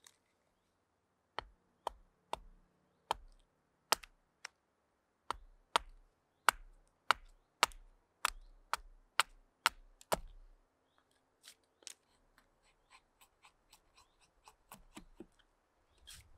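Carving hatchet chopping into a wooden spoon blank held upright on a stump chopping block: a run of sharp wooden knocks, about two a second. After about ten seconds the strikes give way to fainter, lighter taps as the hatchet is held choked up near the head for finer cuts.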